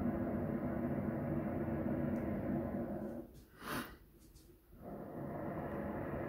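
Propane burner of a hot-air balloon firing in a long blast that cuts off about three seconds in. After a short hiss in the gap, it fires again about a second and a half later.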